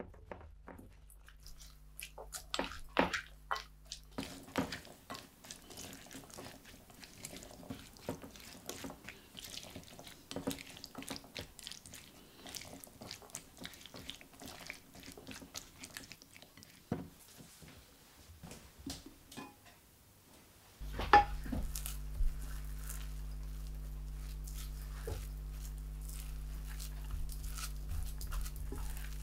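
A silicone spatula stirs beans and miso dressing in a glass bowl: wet stirring with many small clicks of beans against the glass. About 21 s in there is a sharp knock, and a steady low hum comes in and holds to the end.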